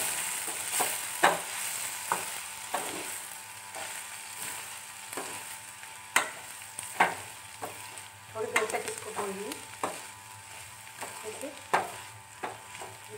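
Onion and chana dal stuffing frying in a metal kadhai while being stirred with a metal spatula: a steady sizzle broken by irregular scrapes and clicks of the spatula against the pan.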